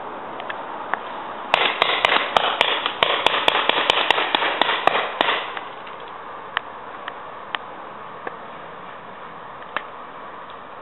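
Paintball markers firing: a rapid volley of sharp pops over a hiss for about four seconds, starting a second and a half in, then scattered single pops about once a second.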